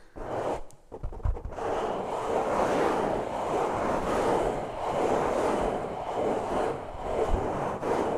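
Brushing directly on a microphone: a few short strokes at first, then a continuous close-up rushing, swishing noise as the brush is swept over the mic.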